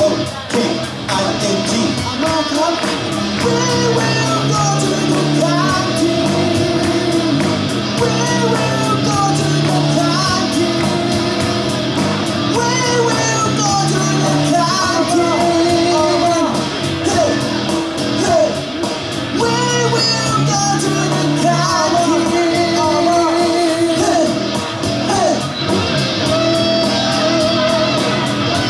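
A live pop-rock band playing with sung vocals: electric guitars, drum kit and keyboard keep a steady beat under the singing.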